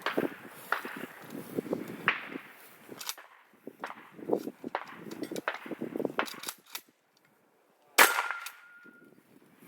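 Shotgun fired repeatedly at steel popper targets: a run of sharp shots and metallic clangs. Near the end comes the loudest shot, followed by a clear ringing tone that lasts about a second.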